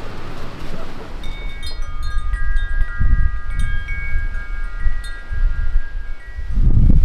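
Chimes ringing in irregular, overlapping high tones, with wind gusting on the microphone, loudest near the end.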